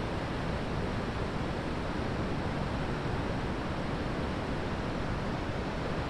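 A river waterfall rushing steadily, an even wash of falling white water.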